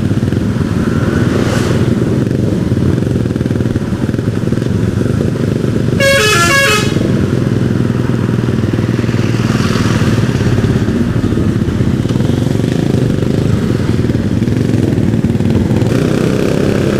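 A Yamaha R15's single-cylinder engine running steadily at riding speed, with a short multi-note air horn blaring for under a second about six seconds in, most likely from the oncoming bus.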